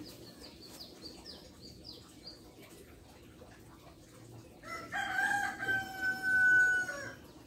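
A rooster crows once, a long held call of about two and a half seconds starting about five seconds in. Before it come a series of faint, short, high chirps.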